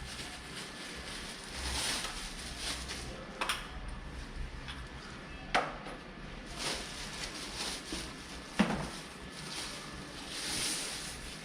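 Hard objects being handled: three sharp knocks or clunks, the loudest about two thirds of the way through, over a soft rustling hiss that rises and falls.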